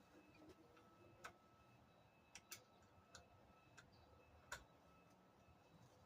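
Faint, irregular clicks and taps of hand tools on the scooter deck's bolts, about half a dozen, the loudest about four and a half seconds in.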